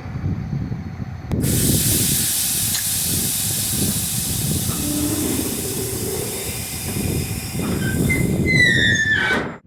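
Compressed air hissing out of an end-dump truck's air system, starting suddenly and running steadily as the trailer is dropped down, over a low rumble. Near the end there are a few short, high squeals that fall in pitch.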